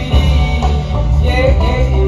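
Live band playing: a male singer on a microphone over keyboard, electric guitar and drum kit, with a strong bass.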